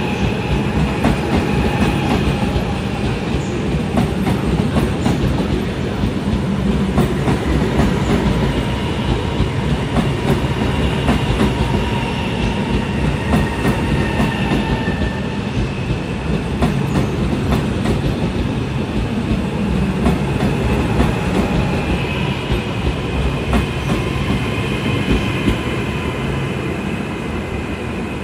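Trenord Caravaggio double-deck electric multiple unit running past along the platform, its wheels clattering over the rail joints with a steady rumble. A faint high whine comes and goes over the rumble.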